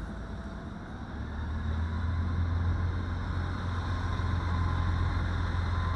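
Low, steady engine rumble of a city bus at a bus terminal, swelling a little over the first two seconds and then holding even.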